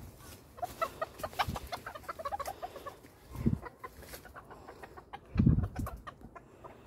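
Chickens clucking in a run of short, quick notes, thickest in the first half. Two low thuds break in about halfway and near the end, the second the loudest.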